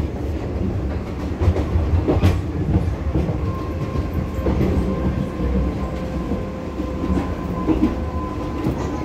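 Metro train running at speed, heard from inside the carriage: a steady low rumble of wheels on rail with a few sharp knocks. A thin steady whine comes in about a third of the way through.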